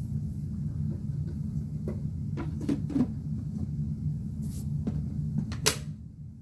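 Plastic parts of a Bissell PowerForce Compact vacuum's cyclone and dust bin being handled and fitted back together: a few scattered clicks and knocks, the sharpest one near the end.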